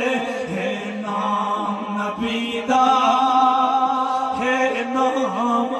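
A man's voice chanting a devotional refrain into a microphone, in long held notes.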